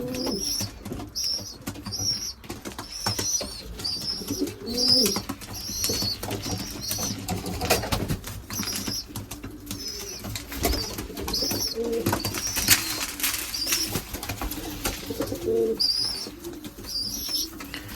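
Racing pigeons in a loft: young birds' short high peeps repeating about twice a second, with low cooing and scattered clicks.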